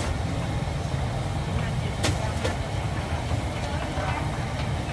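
Busy street ambience: a steady low engine rumble of nearby traffic under indistinct background voices, with a couple of sharp clicks about two seconds in.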